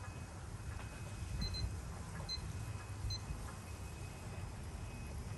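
Digital kitchen timer giving a few short high beeps about a second apart as its buttons are pressed to add another minute, over a low steady rumble.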